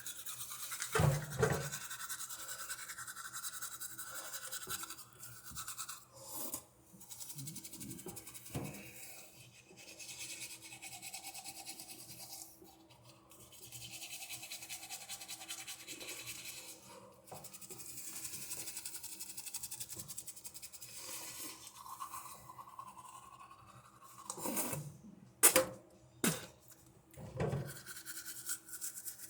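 Toothbrush scrubbing teeth with toothpaste, a fast rasping scrub in stretches broken by short pauses. A few knocks sound near the end.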